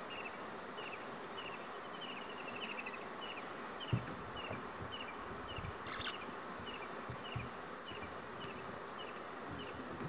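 Steady insect buzz with a short, high chirp repeating about two or three times a second. There is a low thump about four seconds in and a sharp click near six seconds.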